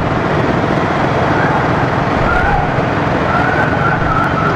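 Steady traffic and engine noise from a jam, over which an old-fashioned vehicle horn sounds faintly as a wavering, siren-like tone several times, from about a second and a half in through to near the end.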